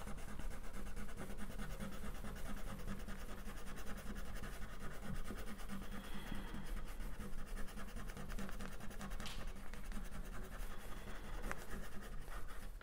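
Wax crayon scratching over paper in quick, steady back-and-forth colouring strokes.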